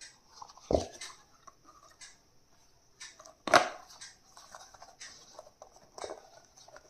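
Stationery items and their plastic packaging being handled: soft rustling and small clicks, with a low thump under a second in and a sharper knock about halfway through.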